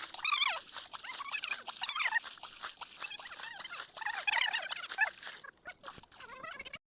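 An animal's short, high-pitched whining calls, coming a few times, over rapid small clicks and pattering.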